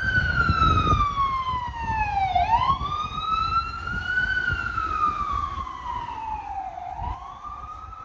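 Emergency vehicle siren wailing, its pitch sweeping slowly down and back up about every four and a half seconds, over a low rumble of street noise. It grows fainter near the end.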